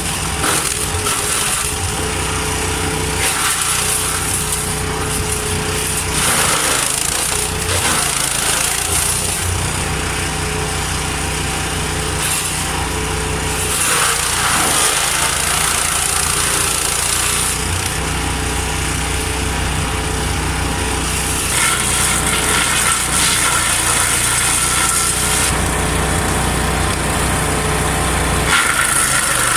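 Wood chipper with a petrol engine running steadily under load, its sound shifting every few seconds.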